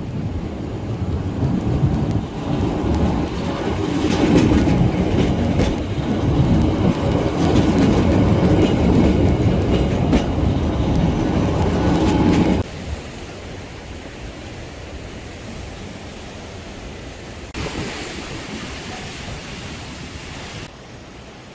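Blue Line beach train rolling past on the old coastal railway, its wheels rumbling on the rails with repeated clicks, louder as it comes alongside. The sound cuts off abruptly about twelve seconds in, leaving a softer steady noise.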